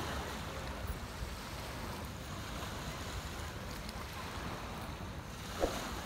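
Waves washing on the beach with wind buffeting the microphone, a steady rushing noise. A brief sharp sound stands out near the end.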